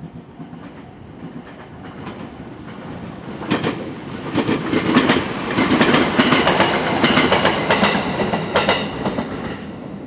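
E127 series two-car electric multiple unit passing close by, its wheels clacking rhythmically over rail joints. The sound builds from about three seconds in, is loudest in the middle, and fades near the end.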